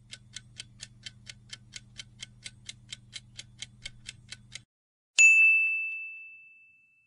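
Quiz countdown-timer sound effect: even ticks about four a second over a low steady hum, then a single bright ding about five seconds in that rings out and fades, signalling the answer reveal.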